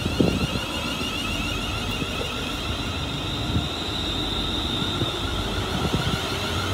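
Class 380 electric multiple unit moving through the station: a steady high electric whine over a continuous rumble.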